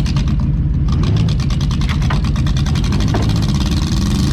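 Demolition derby car's engine running loud and steady, heard from the driver's seat, with a fast, even pulsing in its note.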